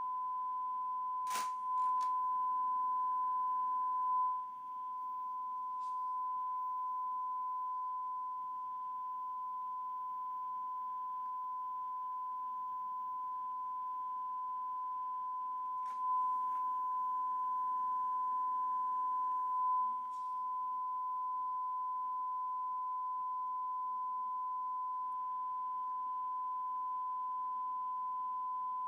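A steady, unbroken electronic test-style beep tone on a VHS tape's soundtrack, one mid-pitched note held without a break, with a sharp click about a second in and a couple of faint clicks later.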